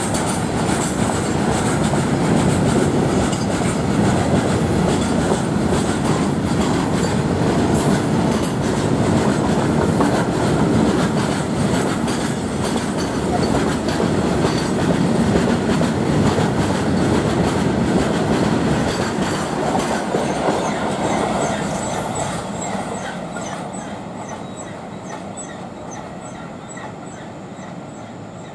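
Freight wagons of a loaded steel train rolling past, wheels clattering over the rail joints in a steady clickety-clack. The rumble fades over the last several seconds as the train moves away.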